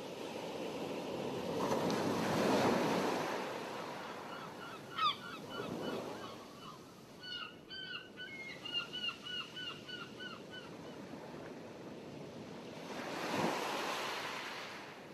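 Sea waves washing, swelling loudest about two seconds in and again near the end. In the middle comes a run of short, repeated bird calls.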